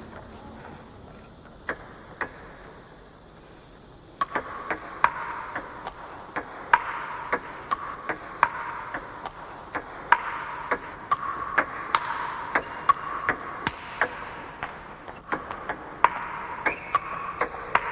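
Table tennis ball clicking off rackets and the table in a rally of backspin chops and backhand attacks. A few scattered hits at first, then a steady rally from about four seconds in, with a steady background noise coming in at the same time.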